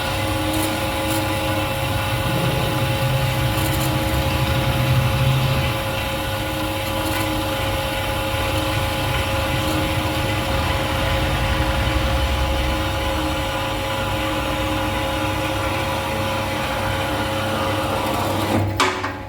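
Metal-cutting band saw running steadily with a constant whine as its blade cuts through metal stock. A sharp clunk near the end, after which the sound drops lower, marks the blade finishing the cut.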